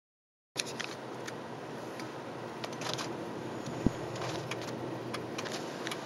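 Car being driven, heard from inside the cabin: steady road and engine noise, with scattered light clicks and a single sharp knock a little before four seconds in. The sound starts about half a second in.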